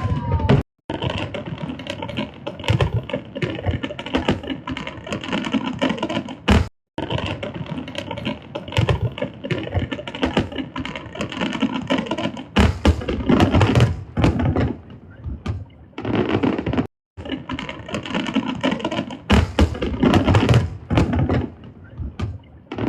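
Large aerial fireworks display going off: a dense run of booms and crackling bursts, one after another, with three brief dropouts in the sound.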